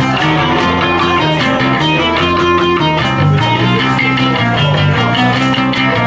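Live rock band playing: electric guitar over bass and drums, with a steady beat.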